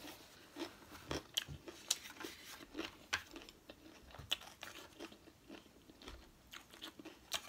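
Faint, irregular clicking and crunching of a person chewing sushi with the mouth closed.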